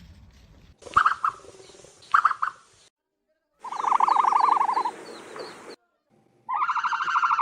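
Ostrich calls: two short calls about a second apart, then two longer calls of about two seconds each, pulsing rapidly, separated by abrupt silences.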